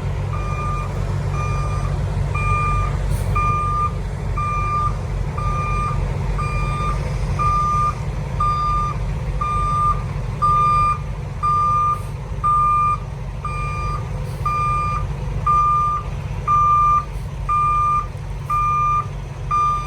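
Semi truck's backup alarm beeping steadily about once a second as the truck reverses to line up with a trailer, over the low running of a diesel truck engine.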